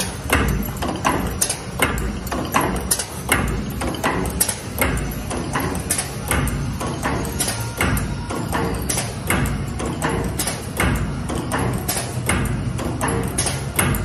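All-servo wire buckle forming machine running at high speed: sharp metallic clacks of the forming tools, about two to three a second, over a low steady hum.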